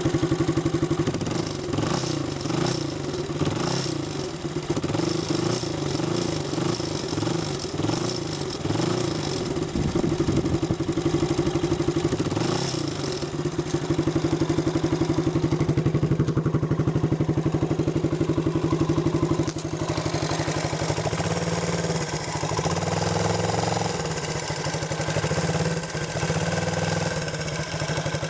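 Suzuki TL1000S V-twin motorcycle engine idling with a metallic rattle, the scrap-metal noise that is being diagnosed. The rattling clicks are thickest in the first half, and the engine note changes about two-thirds of the way through.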